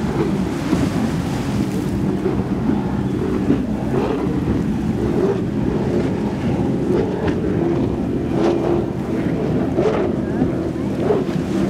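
Offshore racing catamaran's twin outboard engines running at high speed on the water, a steady engine drone that wavers in pitch, with wind buffeting the microphone.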